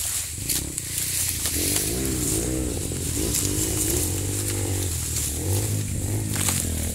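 Dirt bike engine revving up and down, its pitch wavering, from about half a second in until about five seconds, over a steady low drone.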